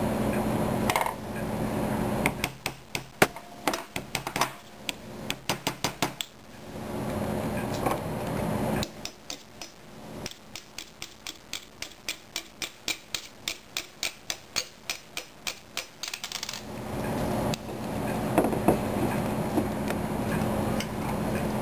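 Small, sharp clicks of plastic and metal parts of a KSC Glock 18C airsoft pistol being worked by hand during disassembly. An uneven burst of clicks comes faster and faster, then after a pause a steady run of about four clicks a second lasts several seconds.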